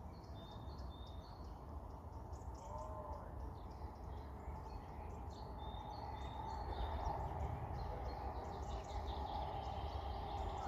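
Small birds chirping repeatedly in short high notes over a steady rushing background of wind and sea, with a low rumble of wind on the microphone.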